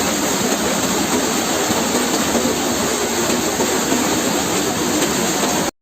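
Steady noise of rushing water from heavy monsoon rain and a swollen waterfall, cutting off abruptly near the end.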